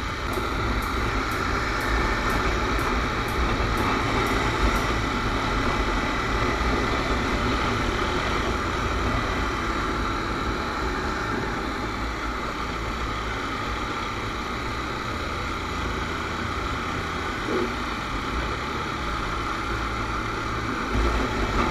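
Riding noise on a Honda CBR250R at steady cruising speed: wind rushing over the microphone, with the bike's single-cylinder engine running underneath and passing traffic around it. There is a faint fast ticking, about three ticks a second, during the first few seconds.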